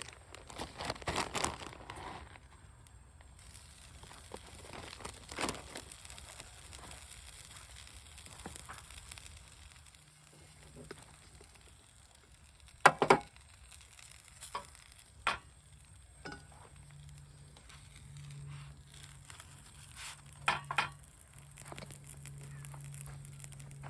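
Corned beef hash sizzling quietly in a pan, with scattered clicks and knocks of a utensil and pan, one sharp knock about halfway through. A low steady hum starts about ten seconds in.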